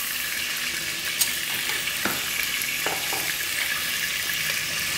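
Food frying in hot oil in a pot on the stove: a steady sizzling hiss, with a few light clicks about one, two and three seconds in.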